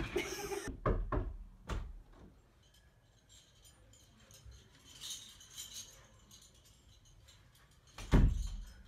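Bedding rustling and a few soft thumps as someone flops onto a bed, then light clicking and rattling, and about eight seconds in a loud thump of a door being pushed shut.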